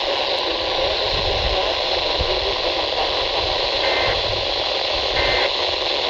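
Steady static hiss from a radio receiver tuned to a weak, noisy weather radio signal. Faint short two-tone chirps come through it about four and five seconds in.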